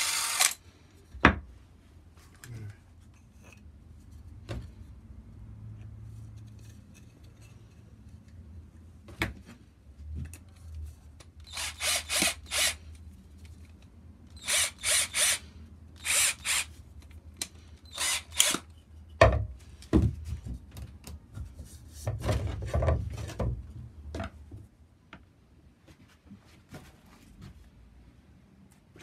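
Cordless drill spinning wooden workpieces to sand them, run in short bursts of a fraction of a second each, with a few sharp knocks of wood and tool on the workbench.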